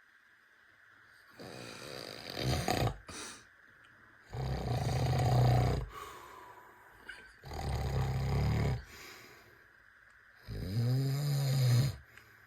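A person snoring in sleep: four long snores, about one every three seconds, with quiet breaths between.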